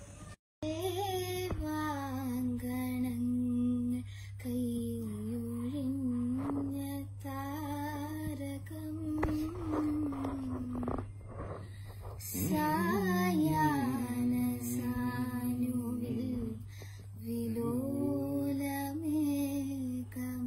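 A young girl singing a slow melody unaccompanied, in long held, gently bending notes with short breaks for breath, over a steady low electrical-sounding hum.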